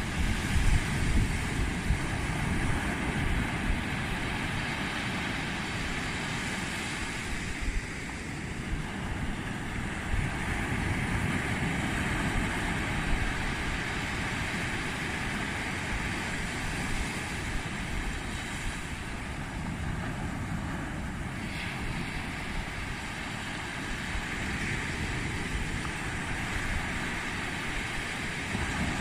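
Small waves breaking and washing up a sandy beach, with wind buffeting the microphone as a low rumble, gustiest at the very start.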